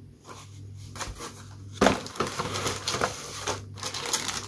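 Paper and plastic rustling and crinkling as a kit's instruction manual and plastic parts bags are handled in a cardboard box, louder from about two seconds in, over a steady low hum.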